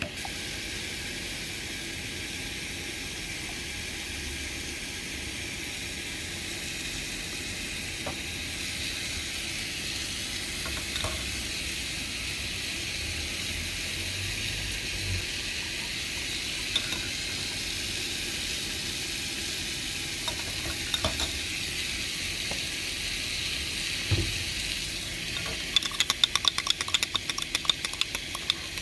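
Food sizzling in a pan on a gas single-burner camp stove, a steady hiss that breaks into a quick run of crackling pops near the end.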